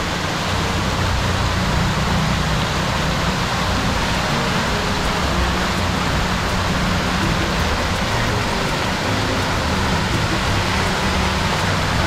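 Water jets of a large public fountain splashing steadily into its stone basin, a continuous even rush of falling water.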